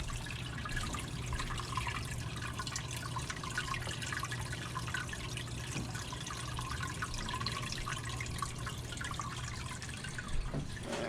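Fish tank water trickling and bubbling steadily, with a low steady hum underneath.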